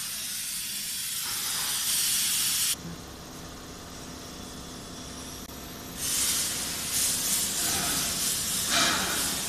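Plasma torch of a CNC steel-pipe cutting machine hissing as it cuts a steel tube. The hiss stops suddenly about three seconds in, leaving a steady low machine hum, and starts again about six seconds in.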